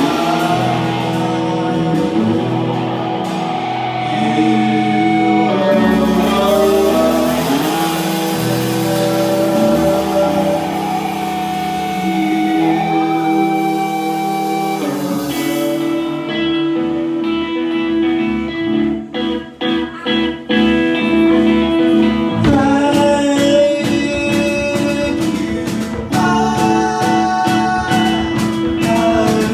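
Three-piece rock band playing live: guitar, bass and drums with a sung vocal. About halfway through, the playing turns to quick, evenly repeated strokes.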